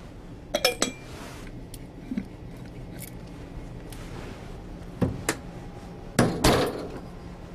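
Clicks and knocks of hard plastic and metal as a centrifuge rotor is closed up: the rotor lid is set on and fastened, with a heavier knock and clatter near the end as the centrifuge is shut.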